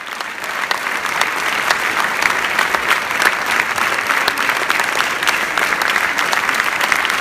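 A large audience applauding, many hands clapping in a dense, steady patter that fades in over the first second.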